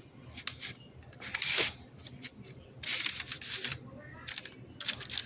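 Handling noise from hands working the s'more ingredients and the handheld camera: a series of short rustles, scrapes and clicks, loudest about one and a half and three seconds in.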